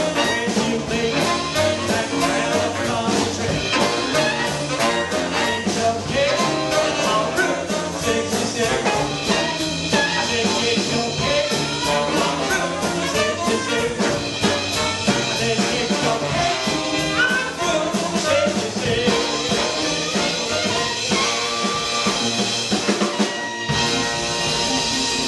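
A small jazz band playing live in swing style: trumpet, trombone and saxophones over electric guitar, double bass and drums, with a male lead vocal.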